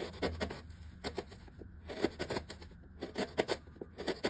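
Kitchen knife slicing a lemongrass stalk thinly on a cutting board: short runs of quick crisp cutting taps, the blade striking the board with each slice.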